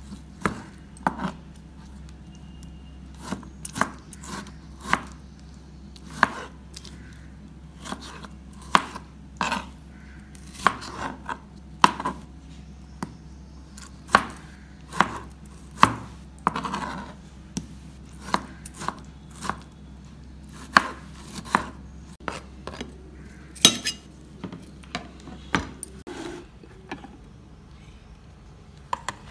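Kitchen knife dicing tomatoes on a plastic cutting board: sharp, irregular knocks of the blade striking the board, about one or two a second, stopping near the end.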